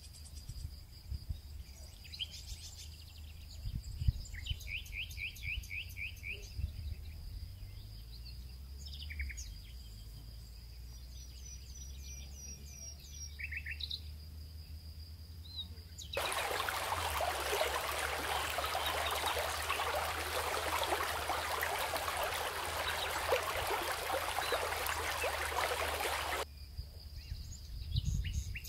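Outdoor ambience of small birds chirping in short calls and quick trills, over a low rumble and a faint steady high tone. A little past the middle, a loud even rushing noise cuts in, covers the birds for about ten seconds, and cuts off abruptly.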